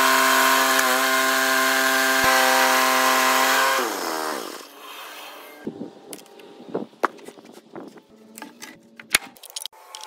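Woodland Mills portable bandsaw mill cutting through a log, its engine running steadily, then winding down with a falling pitch about four seconds in. After that, scattered knocks and clatter of sawn wood pieces being handled.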